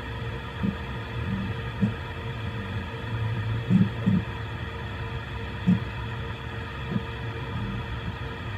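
Voron 3D printer running a print: a steady hum of fans and motors, with several short, louder low buzzes at uneven intervals as the toolhead moves.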